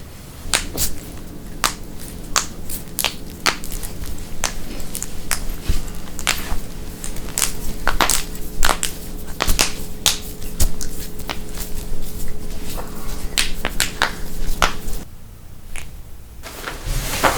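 Joints being cracked: a long, irregular run of sharp pops and cracks, dozens of them, with a short pause near the end. A faint steady hum sits underneath.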